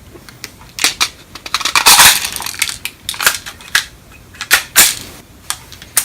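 Sharp metallic clicks and clacks from a full-metal spring airsoft pistol being handled and its slide worked, with a longer rasp about two seconds in.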